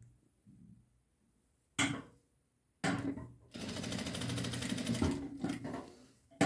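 Jack industrial straight-stitch sewing machine stitching in short runs, tacking a fabric strip down. A brief burst comes about two seconds in, then a longer run of rapid stitching lasting about two seconds, which eases off in a few short spurts. A sharp click comes at the very end.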